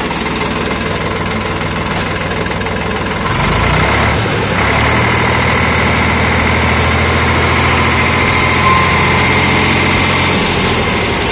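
Eicher 485 tractor's three-cylinder Ricardo diesel engine running steadily at idle. About three and a half seconds in its note shifts and it gets louder, then runs steady again.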